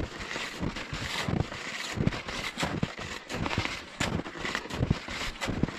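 Hunting skis crunching and swishing through snow in a steady stride, about one stride every 0.7 seconds, with wind buffeting the action-camera microphone.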